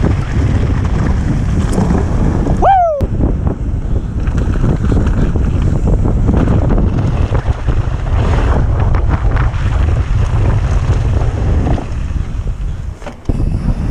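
Wind buffeting the microphone over the rumble and rattle of mountain-bike tyres on a dirt downhill trail. A short falling squeal with overtones cuts through about three seconds in, and a sharp knock comes near the end.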